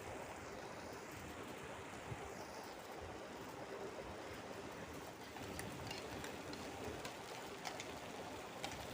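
Chicken curry sizzling as it fries in the pan on high flame, a steady hiss with a few sharp crackles in the second half. The masala is being fried down until it clings to the meat.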